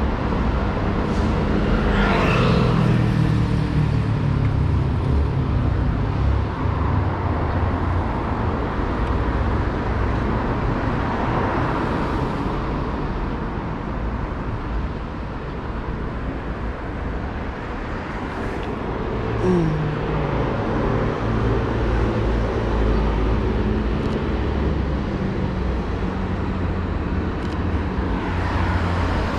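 Street traffic: vehicle engines running and passing close by, with a steady low rumble. About two seconds in, one passing vehicle's pitch falls sharply, and an engine revs up briefly around two-thirds of the way through.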